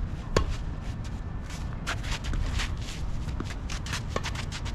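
Tennis rally: one sharp racket-on-ball hit about half a second in, then a player's shoes scuffing and shuffling on the court as he moves, with a fainter hit near the end.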